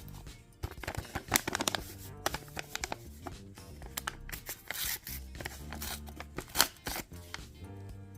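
Handmade paper blind bag being handled and opened: paper rustling and crinkling with sharp snips and taps, over background music.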